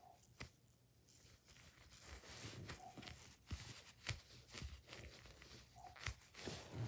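Faint handling sounds of fingers squeezing and turning a small foam squishy toy: soft rustling against the bedspread that grows a little louder about two seconds in, with scattered sharp clicks and taps.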